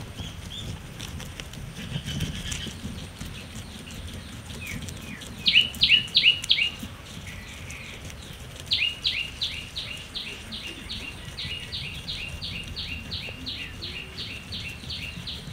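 A bird calling in a series of sharp, falling chirps: four loud ones about five seconds in, then a long even run at about three a second. Under it, faint chewing of para grass by a guinea pig.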